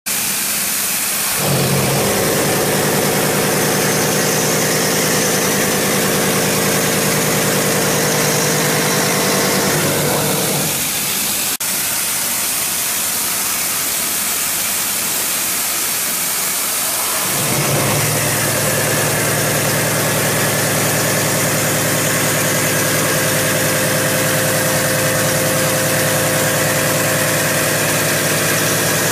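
Hwacheon HiREX-4000 machining center face-milling SUS304 stainless steel with an 80 mm five-insert high-feed cutter at 600 rpm: a steady pitched hum of the cut over a constant hiss. The cutting hum sets in about a second and a half in, stops at about ten seconds leaving only the hiss, and returns at about seventeen seconds for a second pass.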